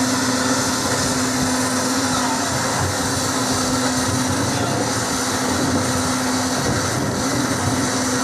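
Shortwave radio receiver static: a loud, steady hiss with a low hum tone running through it, the hum dropping out briefly about seven seconds in.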